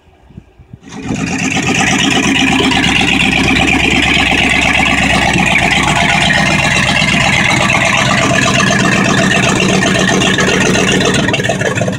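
The small-block 350 V8 of a 1971 Chevrolet C10, which had sat for 12 or 13 years, catches about a second in and runs loud and steady at idle.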